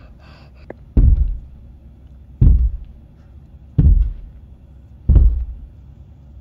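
Four heavy, deep thumps about a second and a half apart: a plush toy fox being stomped step by step across a tabletop as its footsteps.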